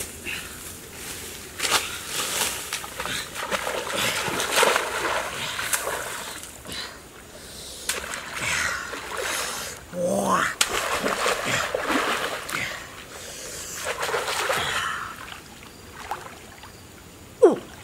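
River water splashing and sloshing, in uneven bursts, as a man wades and works with his hands and a woven basket in shallow muddy water.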